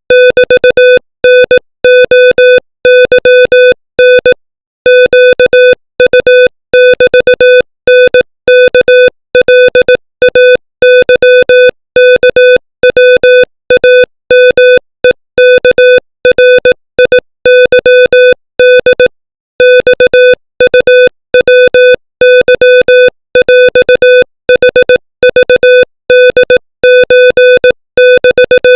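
Morse code at 25 words per minute: a single-pitched beep of about 500 Hz keyed rapidly into dots and dashes, with brief pauses between letters and a couple of longer pauses between words.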